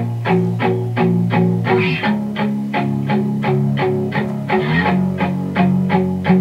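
Guitar music played back from a CD: plucked notes repeating about three times a second over held bass notes.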